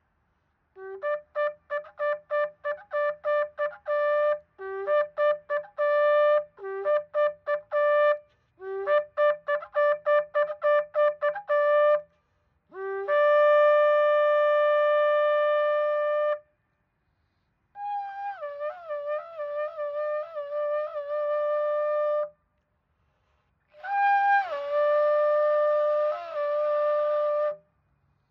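A long, twisted horn shofar being blown in a series of blasts. First come bursts of rapid short staccato notes, then one long steady blast lasting about four seconds, then two long blasts that each start higher, drop in pitch and waver.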